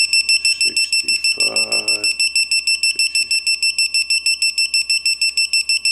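Digital torque wrench beeping rapidly, about six short high beeps a second, while it is pulled through a 70-degree angle-tightening step on a bedplate bolt.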